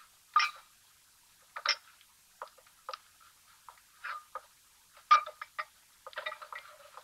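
Scattered sharp clinks and knocks of crockery and utensils being handled, irregular, with the loudest hits about half a second in and about five seconds in, and a quick run of clatter near the end.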